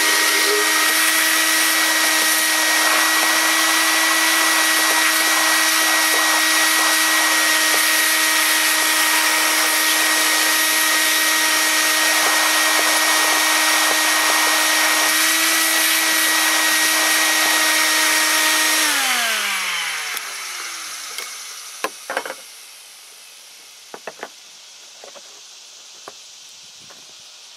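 Shop vac running steadily, sucking styrofoam bits out of a freshly cut hole in a plastic boat deck. About 19 seconds in it is switched off, and the motor winds down with its pitch falling over a couple of seconds. A few light knocks and taps follow.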